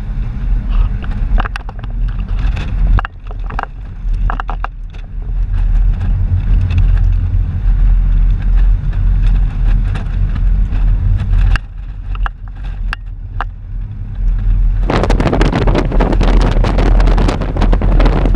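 Car cabin road noise while driving: a steady low rumble with scattered sharp clicks and rattles. About fifteen seconds in, a loud rushing hiss of wind or rain joins it.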